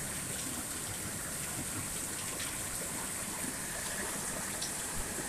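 Heavy rain pouring down steadily on a tin roof, an even hiss of water.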